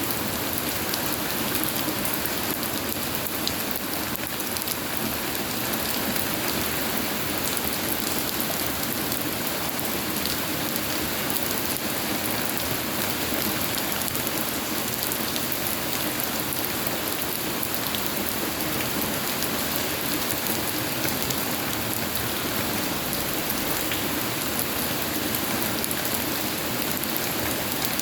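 Steady rainfall with raindrops pattering on surfaces, an even hiss with fine scattered drop ticks and no change in intensity.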